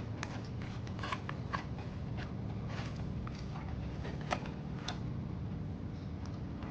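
A man chewing a mouthful of baked pork chop: scattered soft clicks and smacks over a low steady hum.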